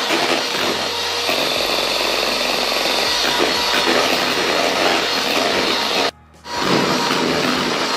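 Electric hand mixer running steadily, its beaters whipping egg whites and powdered sugar into stiff meringue in a plastic bowl. The sound cuts out suddenly for about half a second a little after six seconds in, then comes back.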